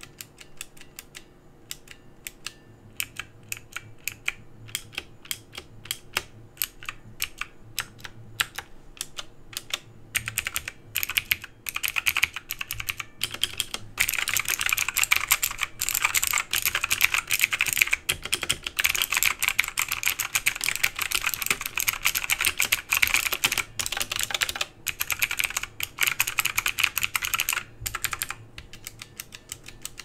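Outemu Blue clicky mechanical switches on a Dierya 60% keyboard. For about ten seconds single keys are pressed a few times a second, each giving a sharp click. Then comes fast typing with both hands, easing back to a few single presses near the end.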